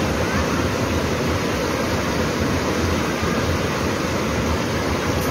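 Rushing floodwater of a swollen river, a steady, even rush with no breaks.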